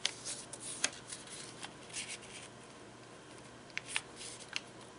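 A sheet of origami paper rustling and crinkling quietly as fingers fold it and press it flat, with a few short crisp ticks of the paper about a second in and again near four seconds.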